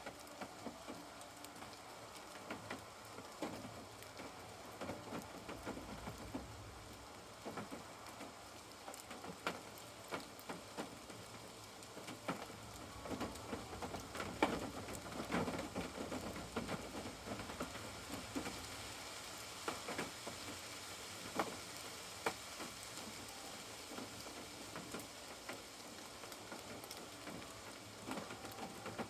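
Rain falling steadily, with many individual drops tapping irregularly on a surface, the drops thickest around the middle.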